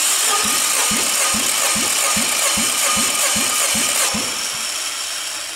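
Nissan HR16DE 1.6-litre four-cylinder engine cranked over by its starter motor for a compression test on cylinder one: a steady whir with an even pulse about two to three times a second as the tested cylinder comes up on compression. The pulses stop about four seconds in, and the cylinder reads 15.5 kg/cm².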